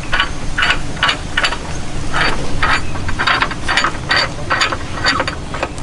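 Winch drum turning in free-spool as its synthetic rope is pulled off by hand through the fairlead, giving a run of short ratcheting rasps, about three a second. The rope is being unwound to clear a wrong wrap on the drum.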